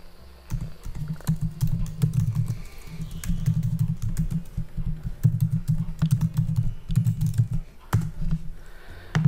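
Typing on a computer keyboard: rapid key clicks in quick bursts with short pauses, as an email address is keyed in.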